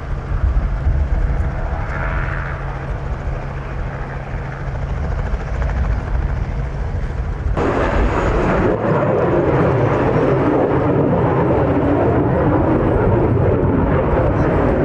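A steady low engine hum across an airfield, then, after a sudden cut about eight seconds in, the louder, steady jet roar of an F-22 Raptor's twin Pratt & Whitney F119 turbofans at takeoff.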